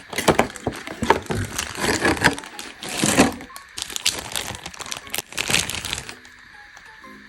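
Plastic wrapping being crinkled and rustled by hand as a squishy is unpacked, a string of loud, irregular crackles that stops about six seconds in.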